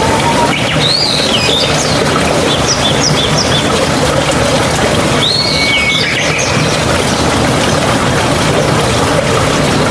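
Steady rushing water. Over it a bird gives a few short whistled calls, about a second in, briefly near three seconds, and again around five seconds in.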